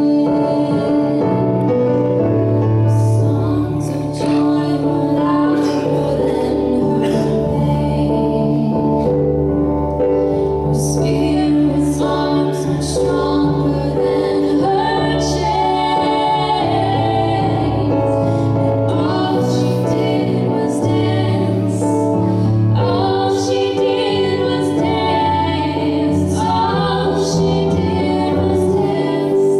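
Live Christian song: a woman singing over instrumental accompaniment, with sustained bass notes underneath.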